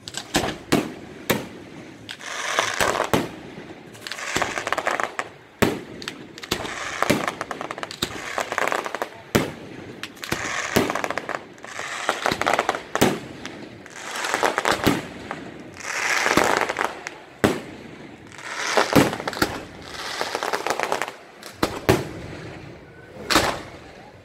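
Fireworks display: aerial shells bursting in quick succession, a sharp bang every second or so, several of them followed by about a second of crackling from glittering stars.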